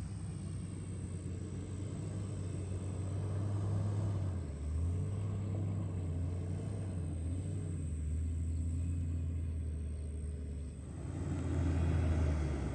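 Car driving, a steady low engine and road rumble.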